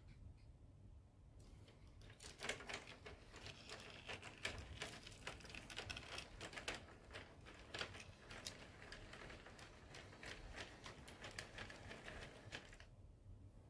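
HO scale model train with paper car bodies moving on the track: rapid, irregular clicking and paper crinkling that start about a second and a half in and stop suddenly near the end.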